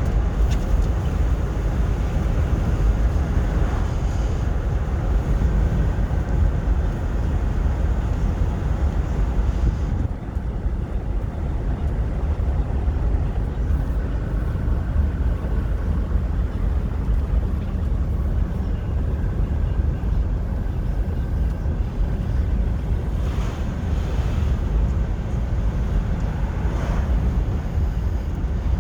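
Steady low road and wind rumble inside a moving car's cabin, unbroken throughout.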